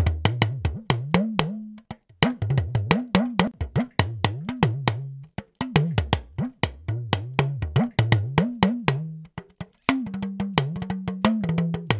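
Recorded talking drum played back: rapid sharp strokes over deep tones that bend up and down in pitch, in phrases broken by brief pauses about 2, 5 and 10 seconds in. It is the take from an AKG C3000 condenser microphone, heard through a Pultec-style equaliser.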